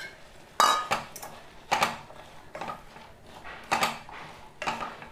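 A spoon knocking and scraping against the side of a kadai while stirring chunks of pumpkin and chickpeas: about five clatters, roughly a second apart, the first the loudest.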